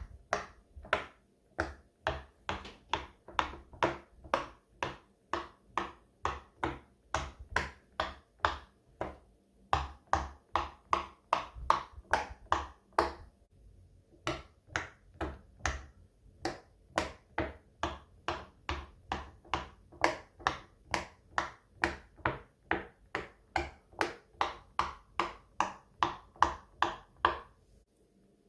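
Silicone pop-it fidget toy's bubbles being pushed through one after another, a steady run of short pops about two to three a second. The pops thin out briefly about halfway through.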